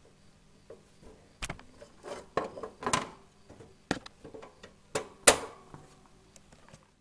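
Irregular sharp clicks and knocks, a dozen or so, the loudest about five seconds in, over a faint steady hum.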